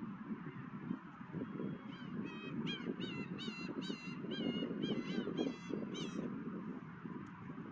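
A gull calling a rapid series of about nine harsh, repeated notes, roughly two a second, starting about two seconds in, over a steady low rush of wind.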